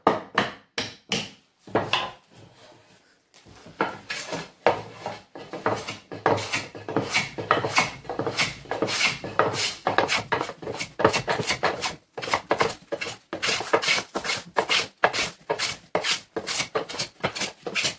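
Several sharp hammer taps at the clamping wedge of a planing beam near the start, then, after a short pause, a Western metal hand plane taking rapid repeated strokes along a wooden board, each stroke a short rasp as a shaving comes off.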